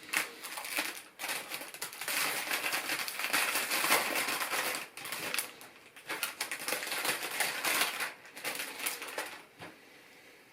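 A plastic LEGO parts bag crinkling as it is opened and handled, with small plastic pieces clicking and rattling. It dies down near the end.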